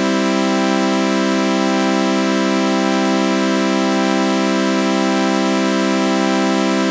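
Synthesized sawtooth-wave chord held as a steady, unbroken drone, bright and buzzy like an electric organ, with a flanger effect adding a slow sweeping shimmer.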